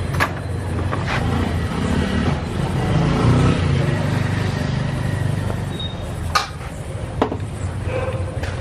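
Steady low rumble of road traffic, swelling as a vehicle passes about three seconds in. A few sharp clicks sound over it.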